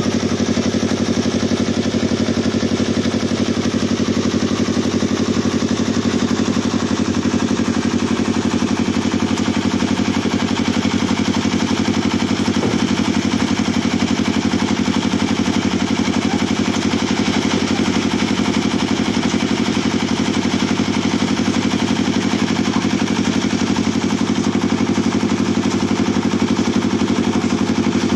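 Engine of a portable tilting-drum concrete mixer running steadily at an even speed, with a single faint knock about halfway through.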